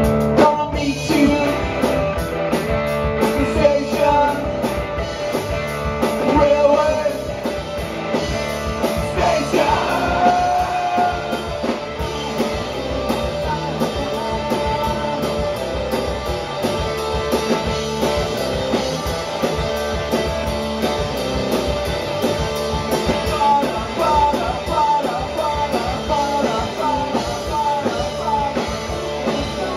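Live rock band playing: electric guitar, electric bass and drum kit, with regular cymbal strokes over the band.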